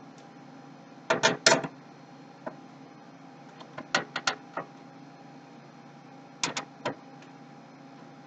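Clicks and small metal knocks of a screwdriver and screws while a motherboard is screwed down into a computer case, coming in three short clusters.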